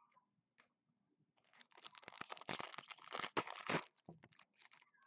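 Foil wrapper of a 2015 Prestige football card pack being torn open and crinkled by hand. The crinkling starts about a second and a half in, runs thick for a couple of seconds, then trails off into a few more crackles.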